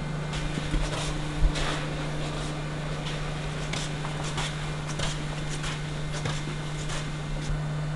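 Footsteps walking along a hallway, about two steps a second, over a steady low electrical hum, with one heavier thump about a second and a half in.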